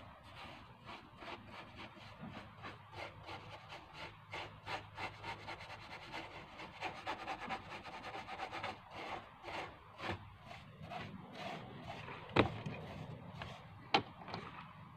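Paintbrush bristles scrubbing back and forth on a wooden porch railing in quick, repeated strokes, with two sharp knocks near the end.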